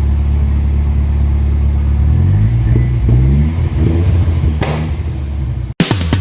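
Car engine running steadily, then revved up and down several times, cut off abruptly near the end.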